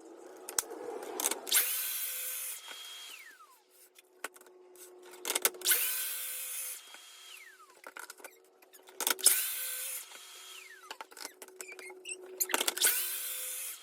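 Track saw making four short cuts through a board, one after another, squaring it up. Each time the motor runs up, cuts, then winds down with a falling whine, with clicks from handling the saw and rail between cuts.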